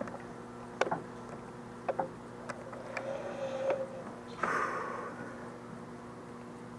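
A few scattered sharp clicks, single shots from airsoft guns out on the field, and a brief rustle about four and a half seconds in.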